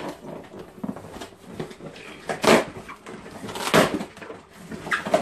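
A long cardboard box being opened by hand: cardboard flaps and plastic wrapping rustling, crinkling and scraping, with two louder rips about two and a half and nearly four seconds in.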